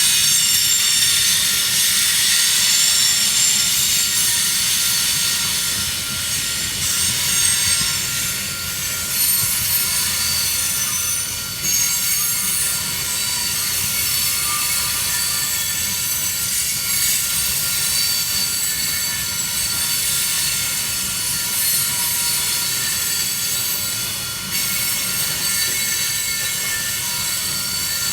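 Union Pacific coal train's cars rolling past, steel wheels squealing on the rails with many steady high whines over a low rumble.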